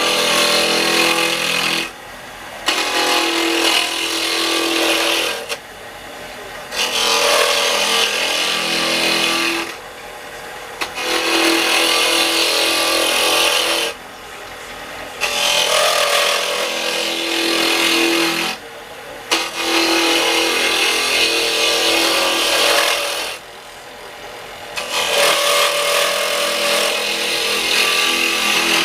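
Woodturning gouge cutting a spinning burl on a lathe, in about seven loud passes of a few seconds each, separated by short pauses.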